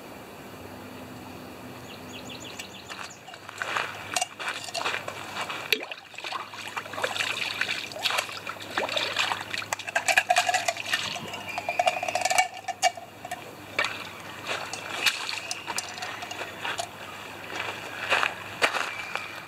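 Water splashing, pouring and sloshing as a canteen cup is rinsed out in a creek, starting about three seconds in and going on in irregular splashes over the running water.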